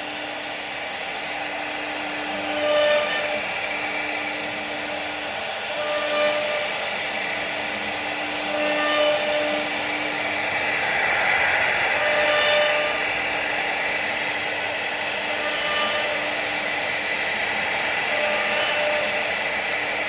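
CNC router spindle running and cutting into wood: a steady whine over a cutting hiss that swells every few seconds as the bit works through its passes.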